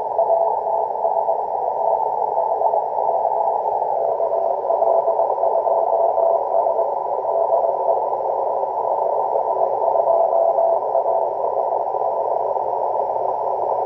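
Morse code (CW) from an amateur radio station received on a shortwave receiver: a single tone keyed on and off in dots and dashes over steady band hiss. The keying stops a few seconds before the end, leaving only hiss.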